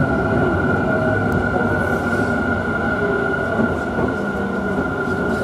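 Electric commuter train running, a steady rumble with a constant high tone over it.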